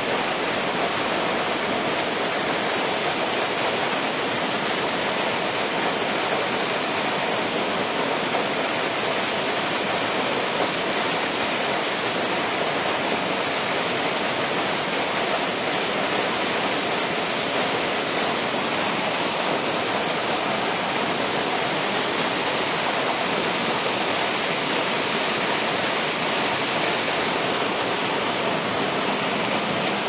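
A waterfall rushing steadily: an even, unbroken hiss of falling water.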